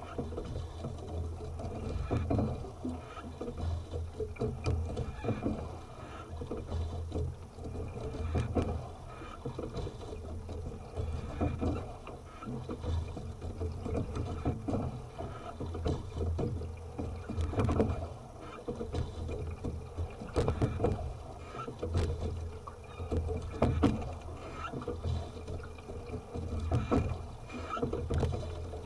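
Single sculling boat under way, rowed with two oars: clusters of knocks from the oars turning in the oarlocks and the seat sliding recur about once every three seconds, one cluster per stroke, over a low steady rumble of water against the hull.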